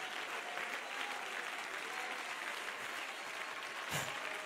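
A church congregation applauding steadily in praise.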